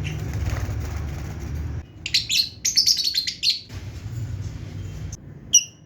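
Lovebirds chirping: a fast run of shrill chirps about two seconds in, then a single sharp call near the end, over a low rumble.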